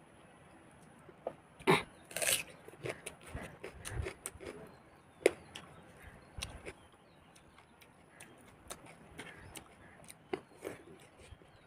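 Close-up eating sounds of someone eating rice by hand: chewing, lip smacks and fingers working rice on a plate. These come as a series of short, irregular clicks and smacks, the loudest pair about two seconds in.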